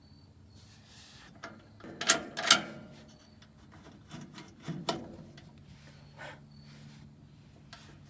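A few sharp knocks and clatters, the loudest two close together about two seconds in and another pair near the middle, over a faint low steady hum.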